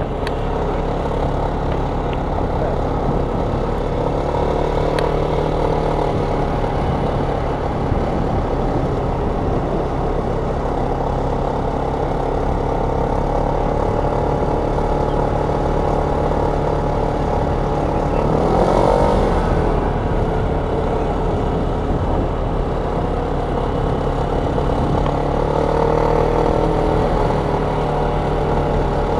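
Car engine running steadily at low speed, with a brief dip and rise in pitch about two-thirds of the way through.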